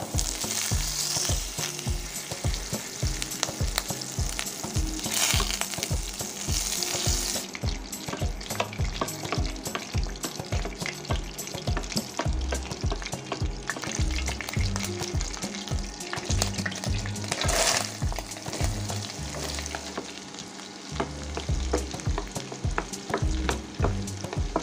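Butter sizzling and foaming in a stainless steel frying pan, stirred and scraped with a wooden spatula; later, chopped onions frying in the hot butter.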